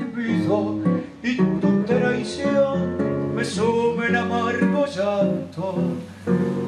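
Instrumental tango passage played on acoustic guitar, with plucked melody notes over strummed chords and no singing.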